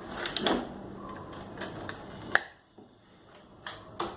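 A few scattered small clicks and knocks of handling, the sharpest about two and a half seconds in, followed by a short drop to near silence.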